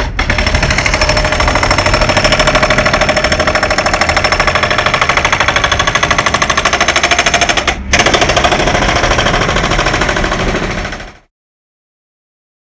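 Pneumatic jackhammer hammering in a rapid, even stream of strokes. It breaks off for a moment about two-thirds of the way through, then resumes and stops abruptly near the end.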